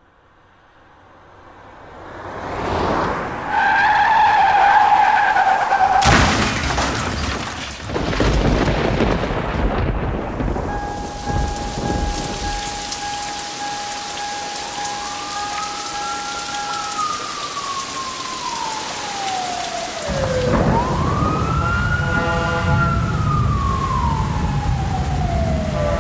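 Heavy rain with thunder rumbling, laid down as sound effects. About four seconds in, a steady two-note tone sounds for a couple of seconds, then a sudden loud crash of noise. In the second half a long steady tone plays, then an emergency siren wails slowly up and down over the rain.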